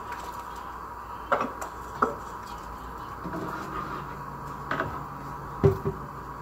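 About five scattered knocks and clinks of kitchen utensils against pots, the loudest near the end, over steady background noise.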